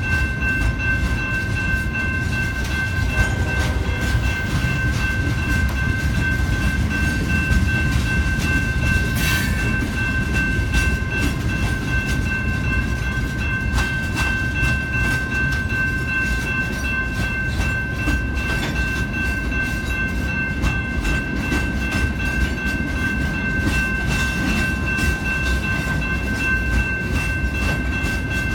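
A train rolling past: a steady low rumble of the cars on the rails, with two steady high whining tones over it.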